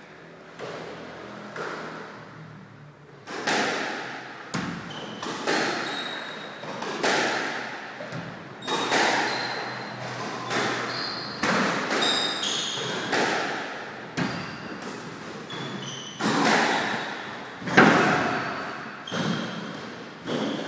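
A squash rally: the ball struck by racquets and smacking off the court walls, a hit every second or so, each ringing on in the enclosed court. The hits are faint for the first few seconds and loudest about eighteen seconds in, with short squeaks of court shoes on the wooden floor between them.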